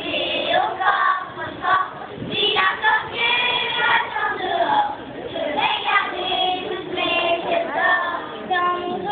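Young children singing a song together, led by a conductor.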